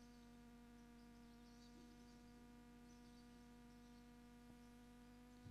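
Near silence: a faint, steady electrical mains hum from the microphone sound system, in a pause of the recitation.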